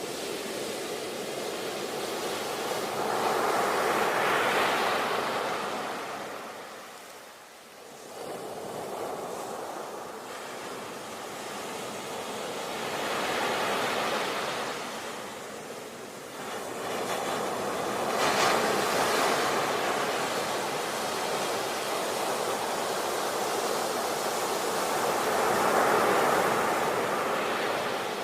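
Ocean waves breaking and washing ashore, a steady surf that swells and ebbs, with four louder breakers and a brief lull between the first two.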